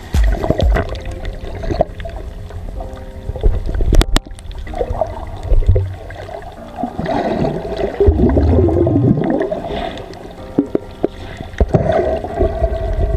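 Muffled underwater audio from a camera held below the surface: water gurgling and sloshing, with scattered sharp clicks over a steady low hum.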